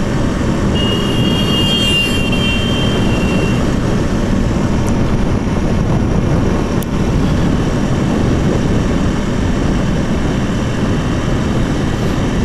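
Riding a KTM RC 200 motorcycle: steady wind rush and road noise over the engine running at cruising speed. A brief high-pitched beep, like a horn, comes about a second in.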